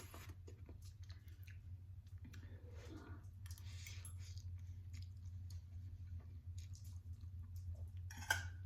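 Close-up eating sounds of a person eating ramen noodles: soft chewing and mouth noises with scattered small clicks, and a sharper click near the end, over a steady low hum.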